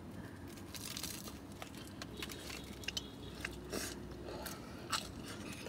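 Faint chewing and biting into a Jamaican beef patty, with a few small crunches and clicks from the pastry.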